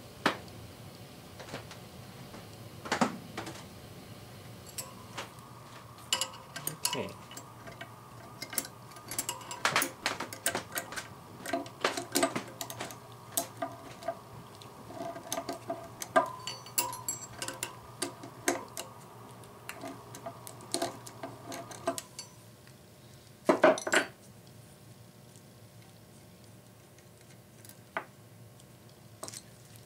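Hand tools and screws clinking and tapping against the steel spokes and hub of a spoked wheel as screws are worked by hand: a scatter of sharp metallic clicks, with a louder clatter about two-thirds of the way through. A faint steady hum sounds under the clicks for most of the middle.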